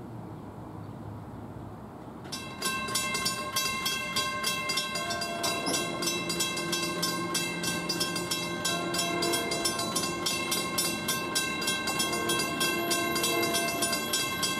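Railroad grade-crossing warning bell that starts suddenly about two seconds in and rings rapidly and evenly, each stroke ringing on. It signals that a train is approaching the crossing.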